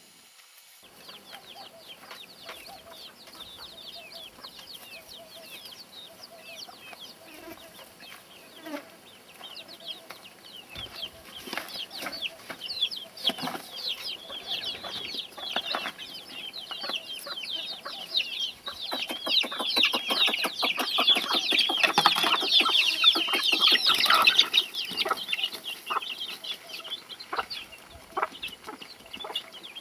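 A flock of chickens: many chicks peeping with short high calls and hens clucking. The peeping builds up and is at its loudest about two-thirds of the way through, with scattered light knocks.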